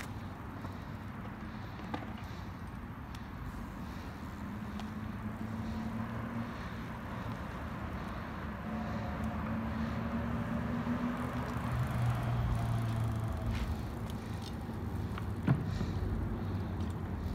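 Steady outdoor rumble of nearby road traffic, with an engine hum that swells about twelve seconds in. A couple of short knocks stand out, the loudest a sharp one near the end.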